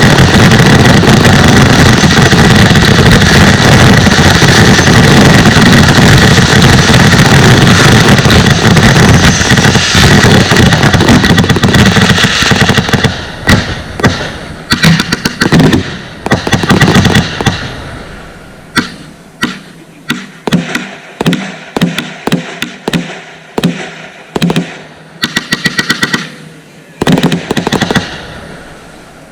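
Consumer fireworks going off in a loud, dense barrage of bangs and crackle, which after about twelve seconds thins into separate bangs and short crackling clusters, each dying away, until the last burst near the end.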